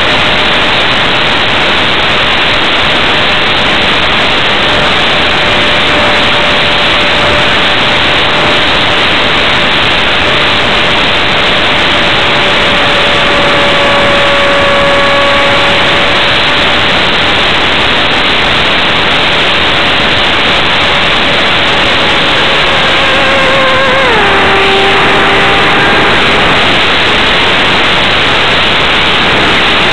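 Airflow rushing loudly over the onboard camera's microphone on an F-27C Stryker electric RC flying wing in flight, with the faint steady whine of its electric motor underneath. About six seconds before the end the motor's pitch drops sharply and settles lower.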